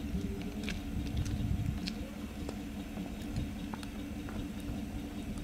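Wind rumbling unevenly on the camera microphone, with a faint steady hum and scattered small clicks.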